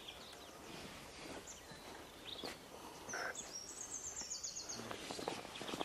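Birds calling in the bush: a few short high chirps, and past the middle a rapid run of high notes lasting about a second, over a low outdoor background with scattered faint clicks and rustles.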